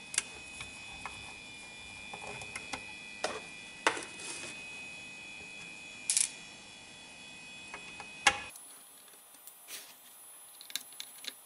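Light handling clicks and taps from a screwdriver and fingers working at a hard disk drive's controller board and ribbon-cable connector: about five sharp clicks spread through, with fainter ticks between.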